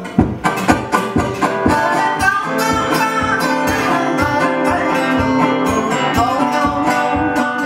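Live acoustic guitars playing a steady plucked rhythm over a held low note.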